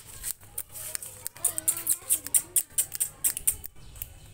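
A German shepherd puppy's claws clicking on concrete as it walks, at about four light, uneven ticks a second. A faint wavering voice-like call comes in briefly about a second and a half in.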